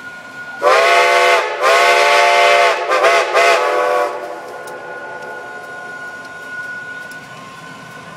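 Steam locomotive whistle blowing two long blasts followed by shorter ones, each blast starting and ending with a slight sag in pitch. After that, quieter steady sound from the train.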